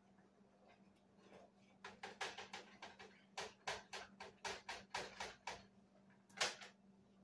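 A spoon knocking against the side of a cooking pot while elbow macaroni is stirred: a quick run of knocks, about four or five a second, with a short break, then one louder knock near the end. A faint steady hum runs underneath.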